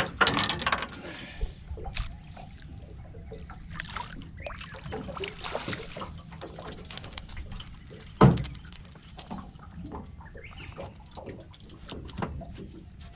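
Water splashing as a whiting is lifted out of the river over the side of an aluminium dinghy, followed by scattered knocks and rattles of handling in the boat, with one loud thump about eight seconds in.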